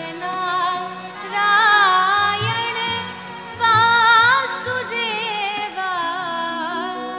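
A woman singing a Sanskrit devotional hymn solo in long, held phrases with wavering melodic ornaments. It swells loudest about a second and a half in and again near four seconds.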